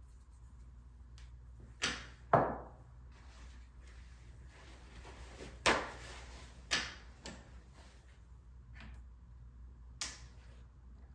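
Painting work at a wooden drawing board: about half a dozen short knocks and swishes from brushes and materials being handled, the loudest about two seconds in.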